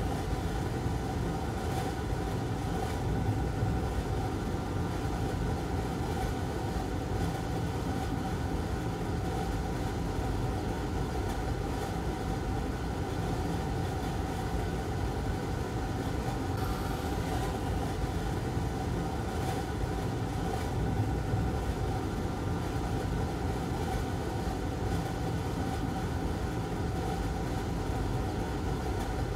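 Hot-air rework station blowing steadily, a rushing hiss with a faint steady whine, as it reflows a replacement PWM controller chip onto a laptop motherboard.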